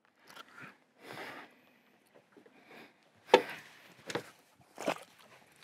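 Handling noises from a small bass being held and unhooked: a few soft rustles, then three short, sharp sounds a little under a second apart, the first the loudest.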